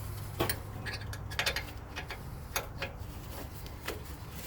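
Hand ratchet clicking in short, irregular strokes as a brake caliper bolt is run in, about seven sharp metallic clicks over a low steady hum.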